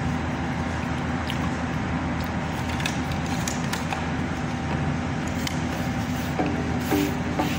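Steady low hum of room noise with a few light clicks from foil takeaway trays and a plastic sauce cup being handled at the table. Plucked-string music comes in near the end.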